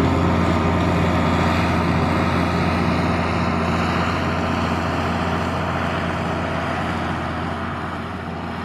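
John Deere 4650 tractor's six-cylinder turbo diesel running steadily under load, powering a 3975 pull-type forage harvester chopping alfalfa, with the harvester's cutterhead and blower whirring along with the engine hum. The sound gradually fades.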